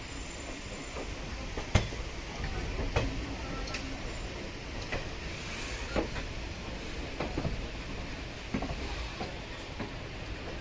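Passenger train rolling over the track: a steady low rumble with irregular sharp clacks of the wheels over rail joints and points, about one a second, the loudest just under two seconds in.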